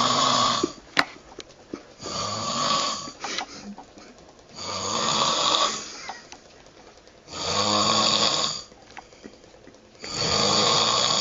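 A man snoring loudly, one snore about every two and a half seconds, each lasting about a second. A sharp click comes about a second in.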